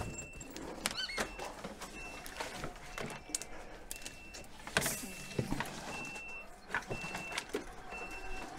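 EcoFlow solar tracker's electric drive motor running as it turns the panel searching for the sun, with scattered clicks and a short high beep repeating about once a second.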